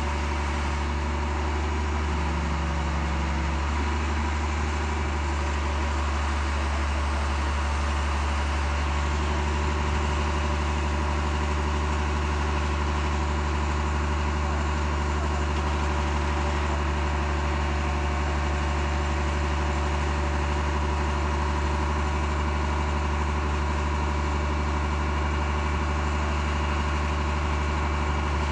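Engine of an overhead-line maintenance rail vehicle idling steadily, a low even hum.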